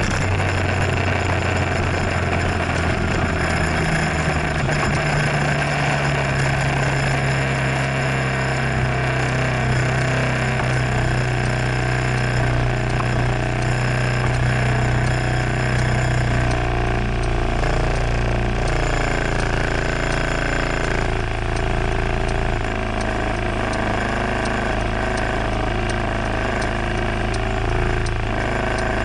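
Scooter engine running, then idling steadily while the scooter stands at a traffic light, with a constant low hum.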